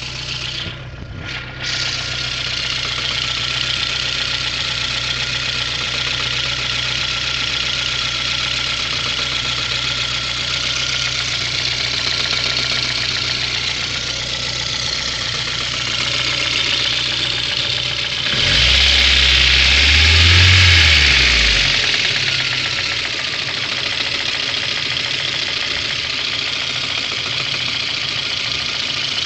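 VAZ-2109 engine idling steadily, revved once briefly about two-thirds of the way through, then settling back to idle.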